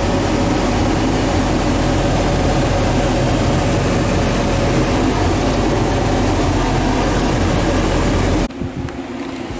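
An engine running steadily under a broad, even hiss. The low engine rumble cuts off suddenly about eight and a half seconds in.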